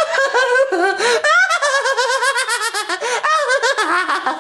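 A high-pitched put-on cartoon voice of a puppet character laughing hysterically, in a rapid string of short laughs without a break.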